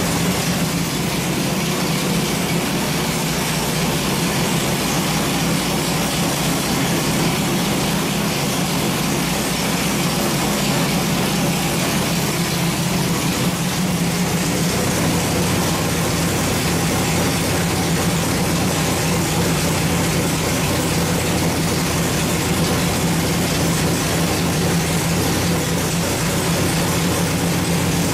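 Small-block Chevrolet 427 V8 race engine idling steadily on an engine dyno, its pitch holding even with no revving.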